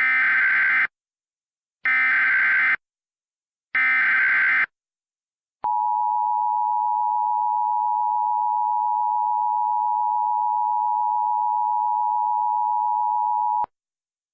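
Emergency Alert System SAME header: three short bursts of harsh digital data, about a second apart, then a steady single-pitch alarm tone lasting about eight seconds, the NOAA Weather Radio 1050 Hz warning alarm. Together they signal that an emergency alert is about to be broadcast.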